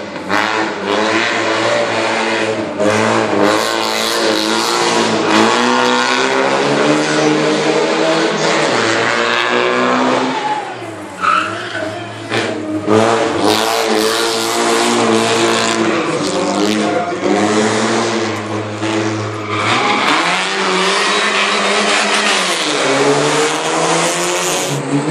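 Race car engine revving hard, its pitch climbing and dropping again and again through gear changes and corners, with some tyre squeal.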